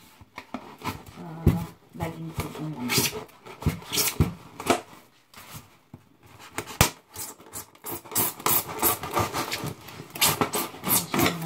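Styrofoam box lid being worked loose by hand, the foam squeaking and creaking against foam in many short, irregular bursts: a grating, teeth-on-edge sound.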